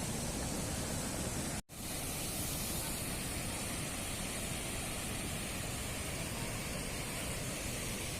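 Steady rushing water of the Barak waterfall, cut off for a moment about a second and a half in.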